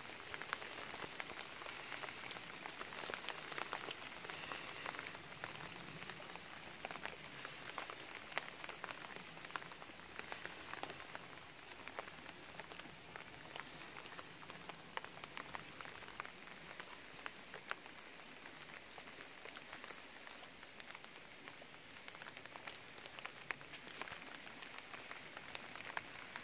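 Light, steady rain falling, a soft hiss dotted with many small ticks of drops.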